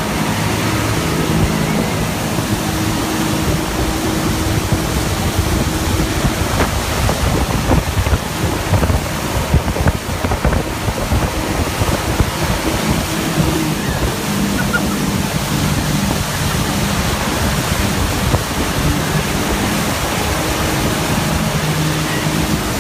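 Motorboat running at speed while towing a tube: a steady engine drone under loud rushing wind on the microphone and the churn of the wake.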